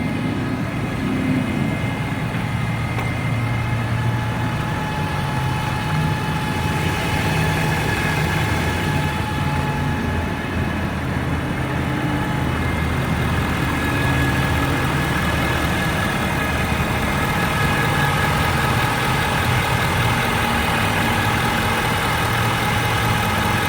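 2013 Ford F-350's 6.7-litre Power Stroke diesel V8 running with a loud, steady whine of several high tones over the engine rumble. The whine appears only once the engine is warm, and its cause is undiagnosed.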